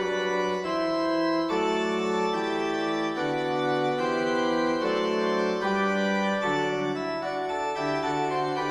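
Background music: sustained organ-like keyboard chords, each held for a second or so before moving to the next.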